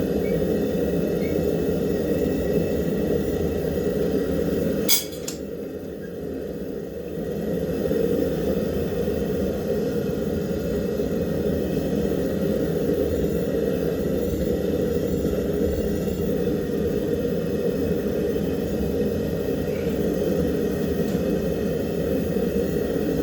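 Forge running with a steady roar. About five seconds in there is a sharp click, and the roar dips quieter for a couple of seconds before coming back.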